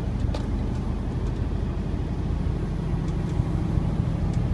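Diesel engine and road noise inside the cab of a 2014 Freightliner Cascadia semi truck under way, a steady low drone.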